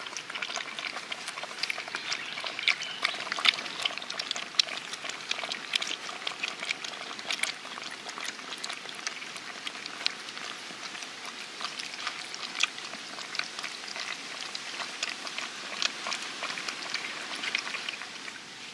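Several puppies lapping and eating from a shallow tray: a dense, irregular run of small wet clicks and slurps.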